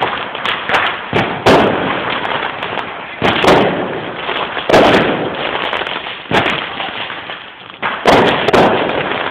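New Year's fireworks and firecrackers going off: a steady crackle with sharp loud bangs every second or so. The crackle thins out briefly before a fresh volley of bangs near the end.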